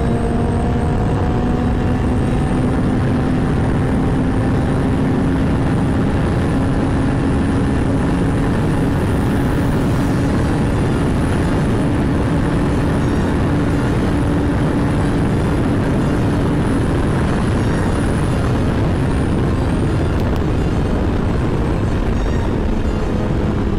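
Motorcycle under way at road speed: a steady rush of wind on the microphone with the engine's drone underneath. The engine pitch climbs slowly through the first half, then drops a little near the end.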